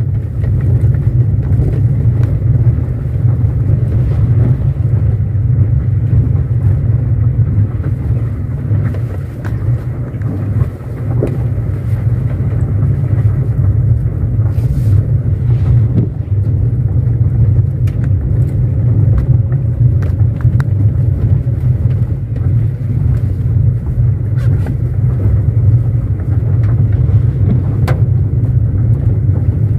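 Car driving on a gravel dirt road, heard from inside the cabin: a steady low rumble of tyres and engine, with scattered small clicks and knocks.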